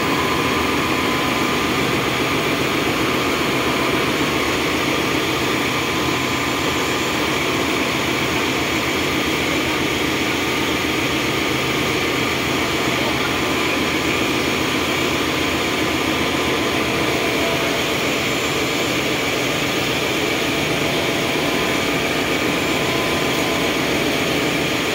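Ship's engine-room machinery running: a loud, steady drone and hum that does not change.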